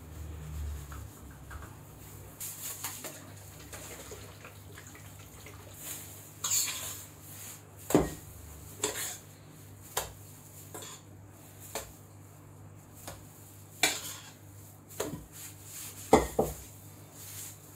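A metal spatula clinking and tapping against hard kitchen surfaces and utensils as whipped cream is scooped out and dolloped onto sponge cake layers. The clinks and knocks come at irregular intervals, about ten in all, and the loudest is near the end.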